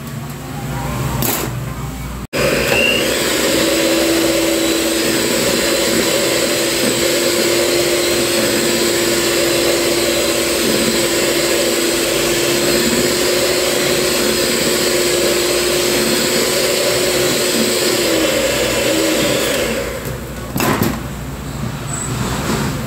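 Electric hand mixer beating chocolate cake batter, starting about two seconds in and running at a steady speed with a constant whirring hum, then switched off near the end.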